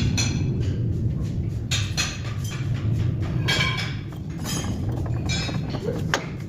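Metal tools and parts clinking and knocking: a run of sharp, irregular metallic strikes over a steady low hum.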